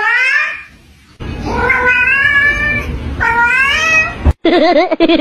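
Grey kitten meowing three times, each meow rising in pitch, the middle one the longest, as it begs for food. Near the end a different wavering, voice-like sound takes over.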